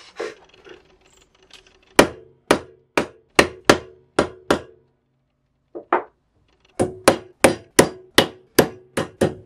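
A hammer striking a small steel hollow hole punch to punch holes through a thin magnetic whiteboard sheet. The sharp taps start about two seconds in at about two a second, pause briefly, then come back faster, about three a second.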